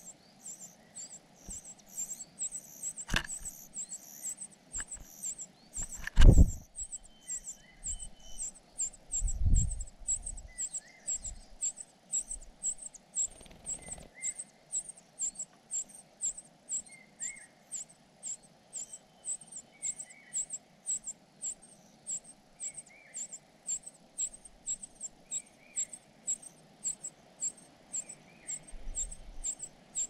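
Nestlings in a ground nest giving thin, high begging calls, repeated a few times a second throughout. A few dull thumps cut in, the loudest about six seconds in.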